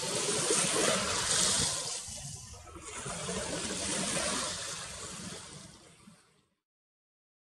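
Sea water lapping and washing in small waves, rising and falling, then fading out about six seconds in.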